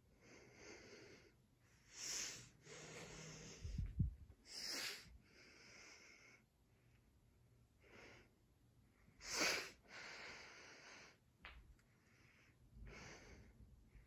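A person breathing and sniffing close to the microphone: a string of short, irregular breathy hisses, the loudest about two seconds and about nine and a half seconds in, with a low thump about four seconds in.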